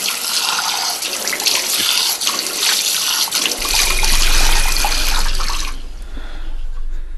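Tap water running into a washbasin and splashed onto a face, with small irregular splashes; the water stops sharply near the end. A low hum comes in about halfway.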